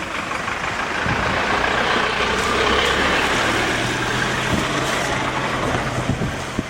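A heavy vehicle's engine running close by, with road noise swelling to a peak mid-way and easing off. The engine note steps up in pitch about halfway through.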